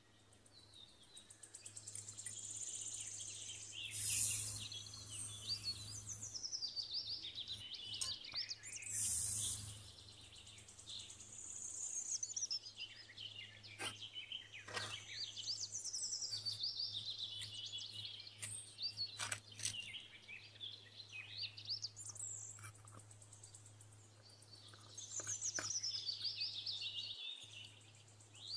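Small birds chirping and singing in quick, repeated rising and falling phrases, over a steady low hum. Two short rushes of noise come about 4 and 9 seconds in, and a few sharp clicks later on.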